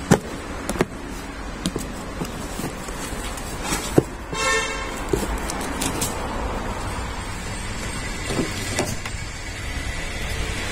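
Cardboard box handled, with a few light knocks and taps. About four seconds in comes a sharp click, then a short pitched tone of under a second, all over a steady low background hum.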